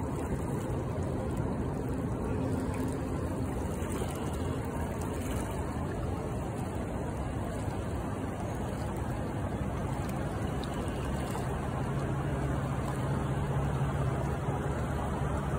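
Steady rush of shallow river current flowing past the microphone, with a faint low hum joining for a few seconds near the end.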